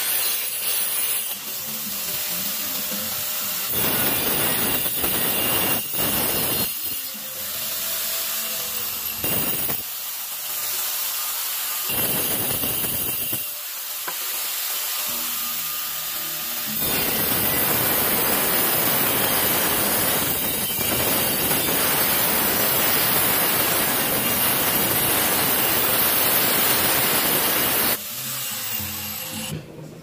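Handheld angle grinder cutting through a ceramic floor tile. It runs in several short cuts with brief breaks between them, then one long cut of about ten seconds that stops shortly before the end.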